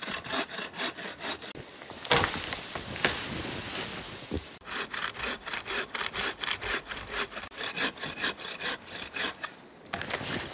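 Bow saw cutting through a fallen, snow-covered tree branch in quick back-and-forth strokes, with a steadier stretch without separate strokes about two seconds in and a short pause near the end.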